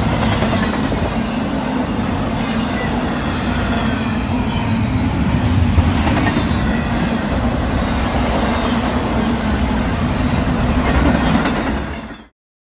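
Intermodal freight train cars rolling past close by: a steady, loud clatter of steel wheels on the rails, with one sharper clank about halfway through. The sound cuts off abruptly near the end.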